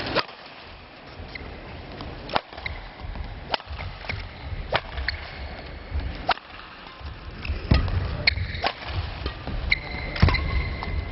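Table tennis ball clicking sharply against bats and the table in a rally, about one crisp click a second with a few quicker ones late on, over the low rumble of the hall.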